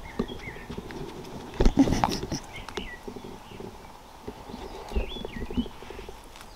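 A puppy nosing and snuffling right at the camera, its nose and muzzle bumping the microphone in a series of knocks, loudest about two seconds in and again about five seconds in. Birds chirp faintly in the background.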